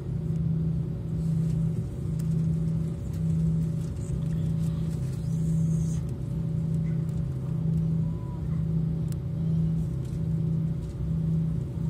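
Airbus A340 cabin noise heard from inside, from a seat over the wing as the airliner taxis: a low rumble with a steady hum that swells and fades roughly once a second.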